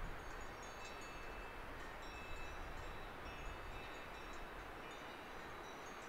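Faint bells clinking irregularly with short, high ringing tones over a steady rushing hiss.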